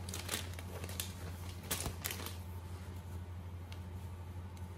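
Rustling of a cotton duvet cover and its plastic wrapping as it is lifted out and unfolded by hand, in a few short bursts over the first two seconds or so, then softer, over a steady low hum.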